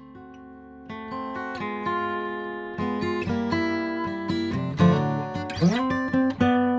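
Instrumental guitar music: picked notes building into strummed chords, with a note sliding upward about five and a half seconds in.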